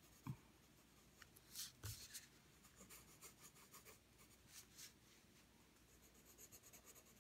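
Faint scratching of a graphite pencil on paper in short shading strokes, with a quick run of rapid back-and-forth strokes near the end. In the first two seconds there are a couple of soft knocks and a rub as the paper sheet is turned on the table.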